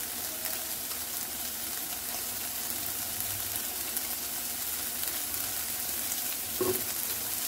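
Diced onions, tomatoes and habanero pepper sizzling steadily as they fry in a little cooking oil in a frying pan.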